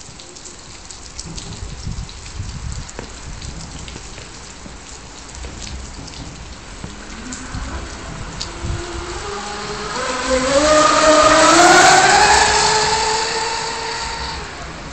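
Electric RC racing catamaran's TP 4060 brushless motor and Octura propeller whining at high speed, rising in pitch and growing louder from about halfway through as the boat runs up close and past, then fading near the end. A steady rushing noise lies under it.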